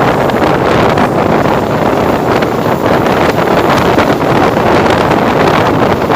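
Loud wind buffeting the microphone on a moving train, over the steady rumble of the train running on the rails.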